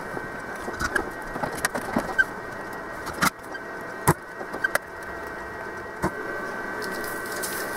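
Steady hum of a desoldering tool at work on a monitor circuit board, with scattered light clicks and taps as the tip is worked over the solder joints.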